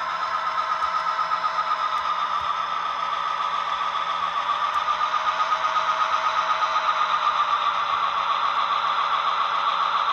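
Model railroad locomotive running on the layout: a steady mid-pitched drone with a fast, even throb, getting a little louder about halfway through.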